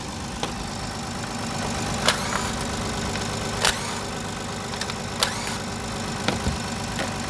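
Kia Carnival 2.7-litre LPG engine idling with a rapid tapping knock, which the mechanic has found not to come from the tappets and diagnoses as piston slap from worn pistons. A few sharp clicks stand out over the idle.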